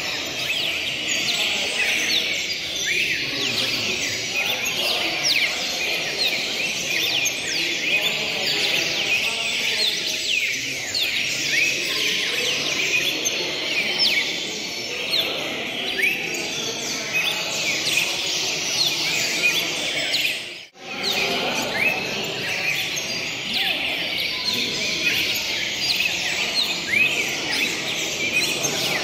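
Many caged songbirds singing at once, a dense, unbroken chorus of overlapping chirps and whistled phrases, over a low background murmur. The sound drops out briefly about 21 seconds in.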